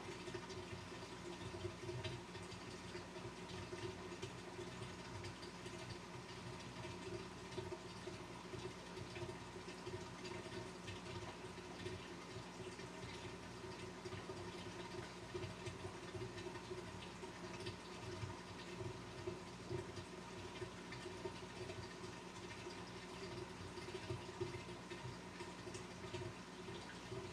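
Aquarium pump running with a steady hum at a few fixed pitches, under a constant fine trickle of moving water in a large fish tank.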